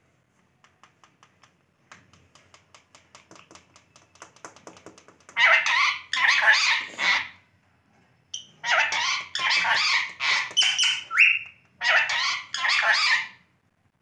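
Ringneck parakeets chattering: a run of rapid soft ticking clicks builds up, then loud harsh squawks come in three bursts from about five seconds in, with one short whistled note among them.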